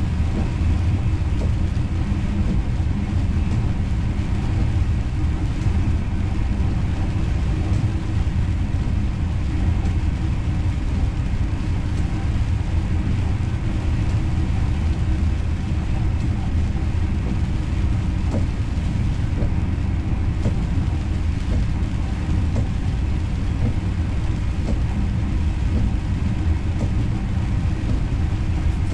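Steady low rumble of an Intercity train running on the rails, heard from inside the driver's cab, with a few faint clicks.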